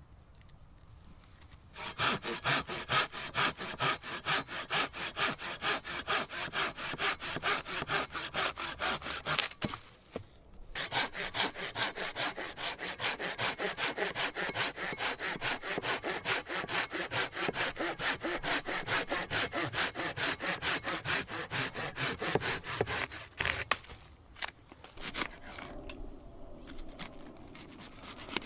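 Curved-blade pruning saw cutting through a fallen branch for firewood, in two long runs of quick, even push-pull strokes with a short break about ten seconds in. The sawing stops about two thirds of the way through, leaving a few faint clicks.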